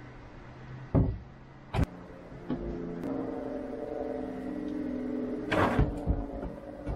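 Plywood panels knocking against the boat as they are lifted in and set in place: two sharp knocks about a second in, then a cluster of knocks near the end. Between them a steady droning hum of several held tones runs for about three seconds.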